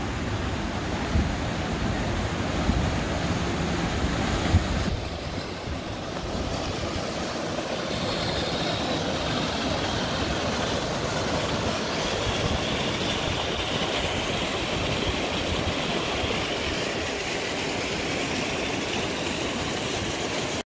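Steady rushing of the Big Sioux River pouring over its falls, with wind buffeting the microphone during the first five seconds.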